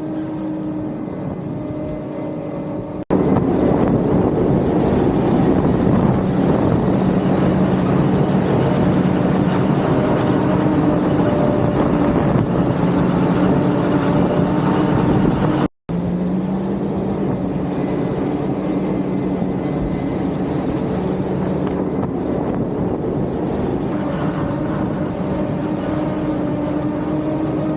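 Large harvester's diesel engine running steadily under load, a deep drone with machinery noise, getting suddenly louder about three seconds in and breaking off for an instant near the middle, like a cut between shots.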